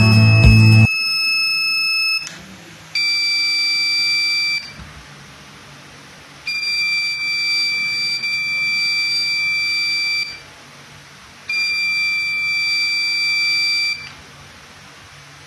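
Buzzer of a simple magnet-switch door alarm sounding a steady high tone in four bursts of uneven length, from about a second to nearly four seconds each, starting and stopping sharply. Each burst marks the door being opened, pulling the magnet away from its switch, and the buzzer cuts off when the door is closed again.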